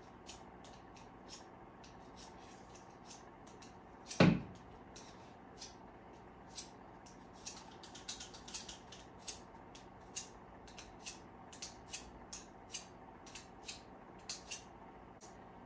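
Short metal-on-metal scraping strokes of a hand sharpener on garden pruner blades, a few a second, with one loud thump about four seconds in.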